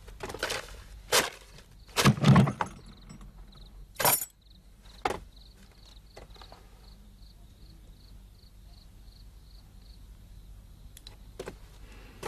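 Wooden chest being unlocked and its lid opened: a run of clicks and metal clanks from the lock and latch over the first five seconds, the loudest a knock about two seconds in. After that only a faint regular high ticking over low room tone.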